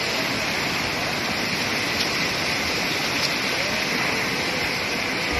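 Whitewater rapids rushing steadily, a constant loud wash of churning river water.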